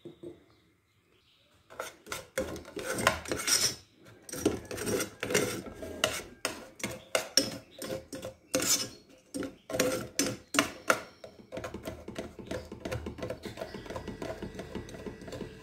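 Metal spoon scraping and clinking against a metal saucepan, stirring and pressing lumps of sugar as it melts into caramel. The sharp scrapes start about two seconds in, and the last few seconds hold a softer, more even scraping.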